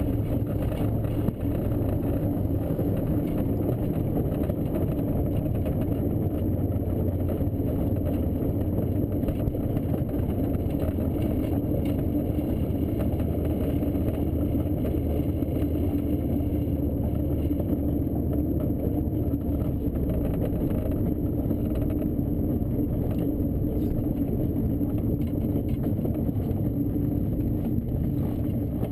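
Steady airflow and rumble noise inside a glider cockpit as it comes in low over the runway and rolls out on landing. The lowest part of the rumble drops away about two-thirds of the way through, and the whole sound eases slightly at the very end.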